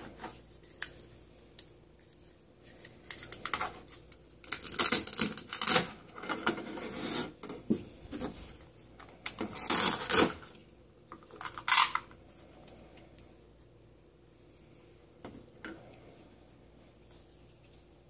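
Velcro tearing apart in several short, rasping rips as a plastic toy knife cuts velcro-joined plastic toy food, with light clicks and taps of hard plastic pieces against the counter.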